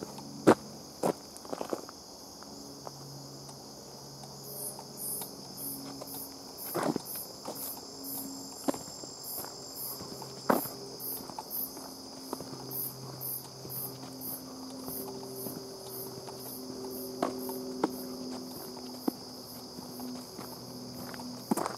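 Insects calling in the trailside brush: a steady high-pitched trill, joined about four seconds in by a higher chirp repeating about twice a second. A few scattered footsteps on the dirt trail.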